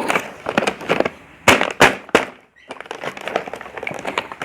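A wrapped package being crinkled and torn open by hand, with crackling throughout and three loud sharp snaps around the middle.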